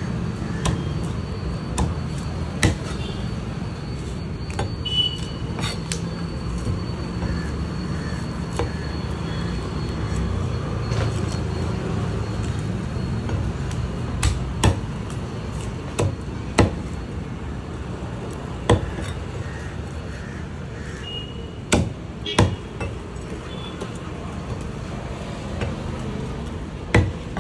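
A heavy fish-cutting knife chopping through a whole fish into steaks on a wooden log chopping block: single sharp chops, spaced irregularly every one to three seconds, over a steady low rumble of street traffic.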